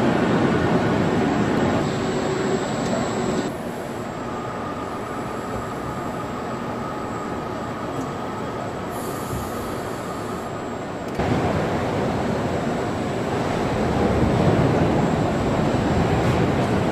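Steady industrial machinery din of a factory floor: a rumbling, hissing noise with a faint steady whine through it. The noise drops to a quieter bed about three and a half seconds in, then comes back louder about eleven seconds in.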